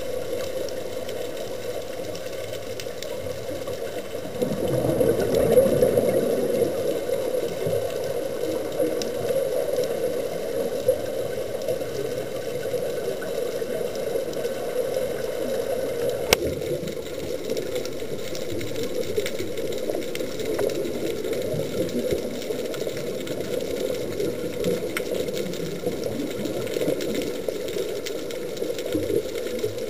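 Underwater noise picked up by a diving camera in its housing: a steady, muffled rush of water with scuba bubbles, swelling louder a few seconds in, and a single sharp click about halfway.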